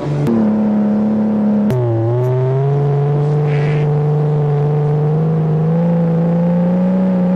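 1982 Toyota Cressida's engine pulling the car under acceleration, its pitch changing abruptly twice in the first two seconds as the gears change, then climbing slowly and steadily. The engine is running well again after water was flushed out of its fuel injection.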